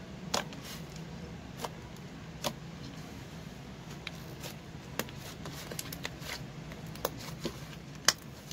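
Soft, thick homemade slime being kneaded and pressed by hand, giving off irregular sharp clicks and pops, the loudest about eight seconds in, over a steady low hum.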